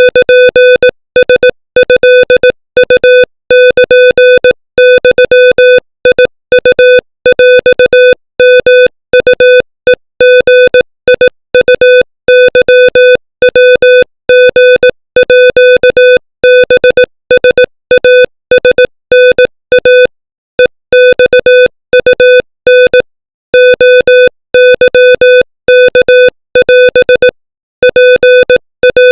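Morse code at 25 words per minute: a single pitched beep tone keyed rapidly on and off in short and long marks (dots and dashes), spelling out Thai text. A few longer silences break it, about 20 and 23 seconds in.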